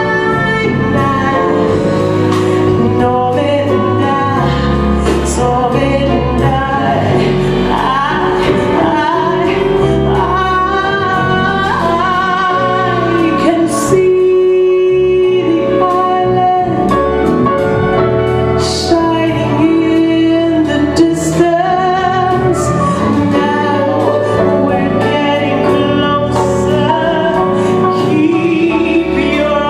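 A woman singing a song live with a jazz band, backed by electric bass guitar and drums with cymbal strokes.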